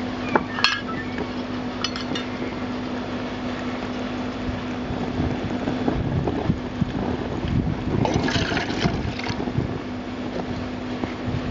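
Wind buffeting the microphone, with a couple of sharp clinks just after the start. About eight seconds in, water is poured from a mug into a tin can for a second or so.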